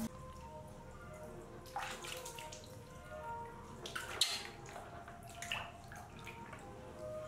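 Water splashing and sloshing in a plastic basin as hands and a baby macaque move in it: a few separate splashes, the loudest about four seconds in. Faint background music underneath.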